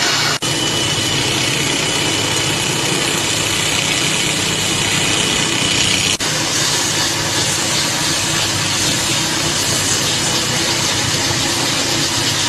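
Belt grinder running with steel pressed against the abrasive belt: a steady, loud grinding hiss that throws sparks. The sound cuts out for an instant about half a second in and again near six seconds.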